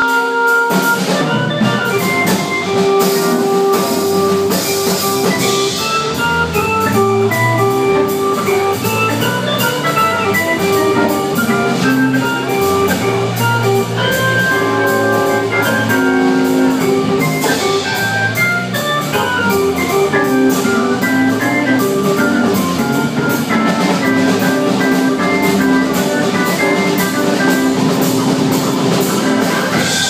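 A small live jazz band playing: drum kit with steady, evenly spaced cymbal strokes under sustained keyboard chords.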